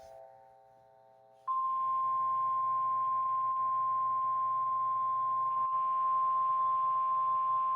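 NOAA Weather Radio 1050 Hz warning alarm tone: one loud, unbroken steady tone that begins about a second and a half in, sounded here as part of the weekly test of the alarm system.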